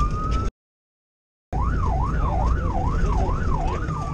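Fire engine's siren heard from inside the cab over a steady engine rumble: a slow rising wail that cuts off about half a second in, a second of silence, then a fast up-and-down yelp of about two sweeps a second, switching to a slow falling wail near the end.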